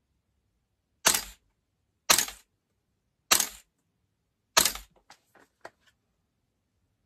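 Airsoft gun firing four single shots about a second apart, as the red-dot sight is zeroed, followed by a few faint clicks.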